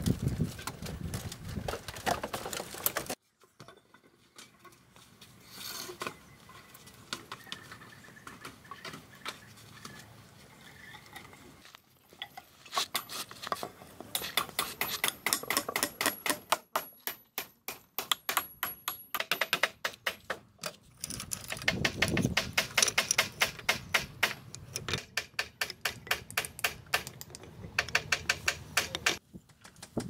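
Quick runs of light taps and knocks, several a second, from hand tools at work in building. They come in bursts, with a pause of several seconds after the first.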